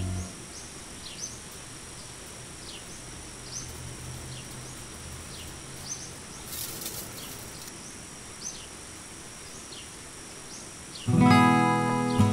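A small bird chirping over and over, short falling chirps about once a second, in a quiet spell; a brief rustle comes about seven seconds in. Acoustic guitar music starts near the end.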